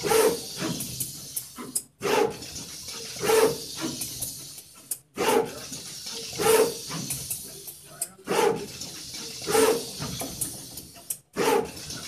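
SMT460 pick-and-place machine running its placement cycle, the gantry head moving between feeders and board. A burst of machine noise comes about every three seconds, with a brief gap between bursts.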